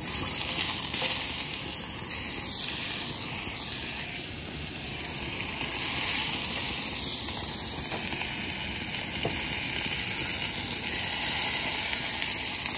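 Sous-vide filet mignons searing in a hot cast-iron pan with olive oil: a sizzle that starts suddenly as the first steak goes in and keeps up as the others are laid in beside it.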